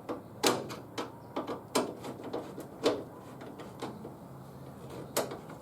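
Hand screwdriver driving a screw into the truck door's window trim: a handful of sharp, irregularly spaced metal clicks and knocks.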